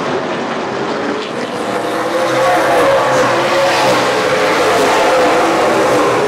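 Several late model race cars' engines running together on the track, the sound growing louder about two seconds in.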